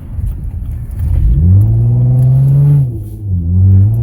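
Dodge Journey's engine revving up as the car accelerates hard under a pedal box throttle controller, heard from inside the cabin. It climbs in pitch about a second in, holds loud, drops briefly about three seconds in, then climbs again.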